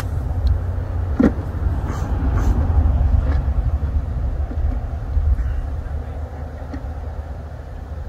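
Wind buffeting a phone microphone: a steady low rumble, with a few light clicks and knocks of wooden hive frames being handled in the first few seconds.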